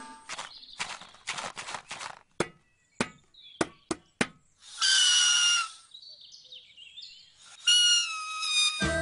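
Cartoon sound effects: a run of toy drum taps and knocks for about four seconds, then a blade of grass blown between the thumbs giving two high-pitched squeaky whistles, the second one falling in pitch near the end.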